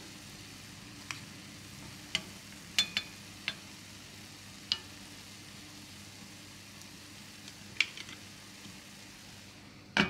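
A wooden spoon knocks and scrapes against a non-stick pot of steamed rice as lumps of animal fat are pressed in, a scattering of sharp clicks over a faint steady hiss. Near the end a glass pot lid is set down on the rim with a brief clatter.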